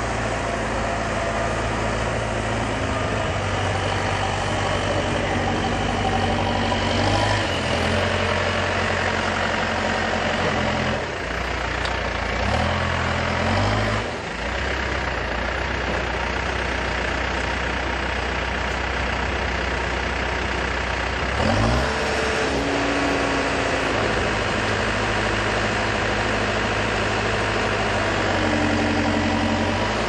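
Case 580 Super M II backhoe's four-cylinder turbo diesel engine running steadily, its pitch shifting several times as the machine is moved and worked, with a quick rev-up about two-thirds of the way through.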